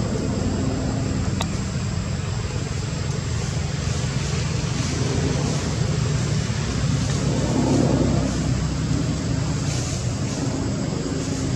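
A steady low mechanical hum, like an engine running, under a constant high hiss.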